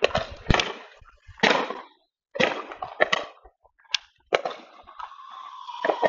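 Consumer aerial fireworks going off: about seven sharp bangs, each fading quickly. From about four and a half seconds a steady whistle with hiss joins in.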